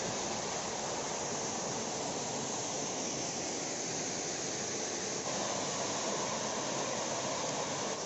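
Small waterfall pouring down a rock face into a pool: a steady, even rush of falling water.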